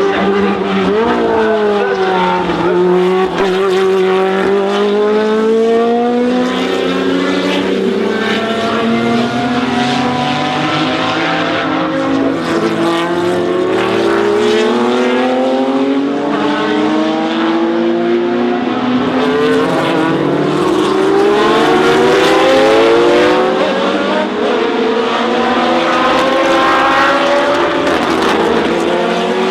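1970s Lola sports-prototype race car engine running hard. The pitch climbs in repeated rising sweeps and drops back at each gear change, with a longer falling run near the start as the car comes off the power.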